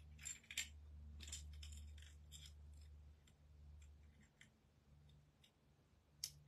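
Small metal clicks and snaps of a stapler being handled, its magazine freshly refilled with staples and snapped shut, with two sharper clicks near the end.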